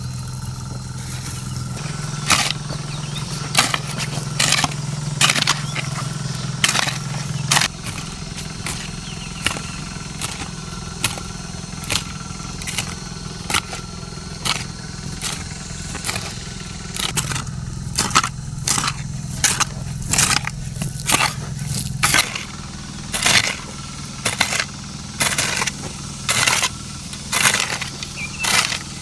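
A small engine running steadily, its hum getting louder and softer in steps, with many short, sharp crunching snaps over it that come faster in the second half.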